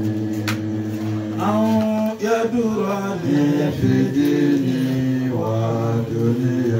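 A man's voice chanting a slow, melodic Quranic recitation into a microphone, drawing out long held notes that bend up and down, over a steady low hum.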